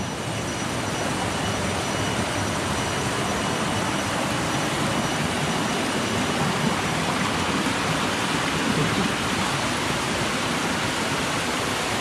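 Steady rush of a small waterfall, water cascading over rocks in an even, unbroken noise.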